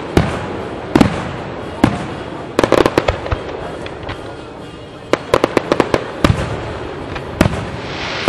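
Aerial fireworks shells bursting: single loud bangs about a second apart, then two rapid strings of crackling pops, about two and a half seconds in and about five seconds in.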